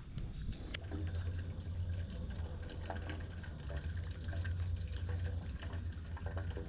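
Water splashing and trickling, with scattered small ticks and a low steady hum underneath from about a second in.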